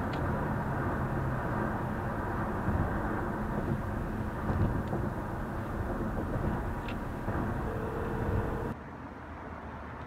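Steady road and tyre noise of a car cruising on a highway, heard from inside the cabin. About nine seconds in it cuts abruptly to a quieter steady rumble.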